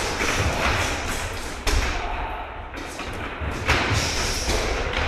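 Kicks landing on padded kick shields: several heavy thuds at irregular intervals, the loudest about two seconds and nearly four seconds in, over steady background noise of many people moving.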